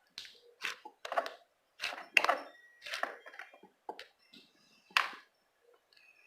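Slime being squeezed and stretched by hand, giving a string of irregular sharp pops and crackles, roughly one or two a second.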